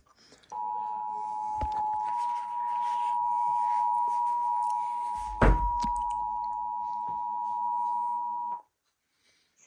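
Emergency Alert System attention signal: a steady two-tone alarm of 853 and 960 Hz held for about eight seconds, then cutting off sharply. A single thump sounds about halfway through.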